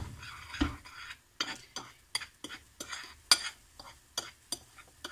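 A small metal spoon stirring and scraping a dry mix of sugar and grated lemon zest on a ceramic plate, tapping the plate about three times a second with short clinks.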